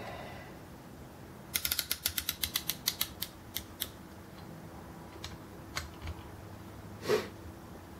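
Ratchet of a piston ring compressor clicking as its band is tightened around a piston's rings: a fast run of clicks about one and a half seconds in that slows and spreads out, then a few single clicks. A short louder noise near the end.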